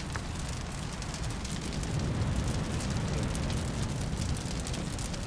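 Open wood campfire burning, a steady rush of flame with many small crackles and pops from the wood.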